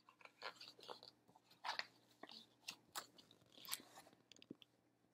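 Faint, scattered crackles and taps of paper being handled as a picture-book page is turned and pressed flat.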